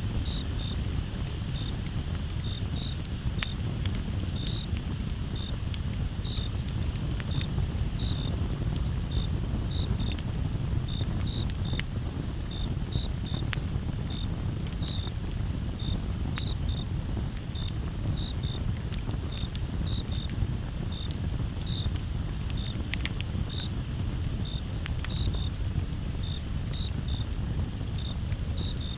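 Crickets chirping in a steady, evenly spaced rhythm over a campfire crackling with scattered sharp pops and a low steady rumble.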